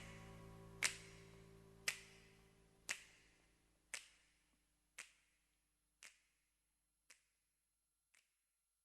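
Faint finger snaps about once a second, each quieter than the last, over the dying ring of the final chord as the track fades out.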